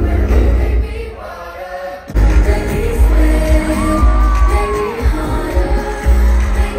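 Live pop music played loud over a festival stage's sound system, heard from the crowd: a singer over a heavy bass beat that drops out about a second in and comes back hard just after two seconds, with the crowd cheering.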